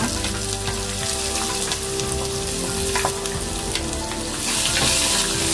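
Chopped onion sizzling as it goes into hot oil in an earthenware pot with fried urad dal, mustard seeds, dried chillies and curry leaves; the sizzle grows louder about four and a half seconds in as a spoon pushes the onion into the oil.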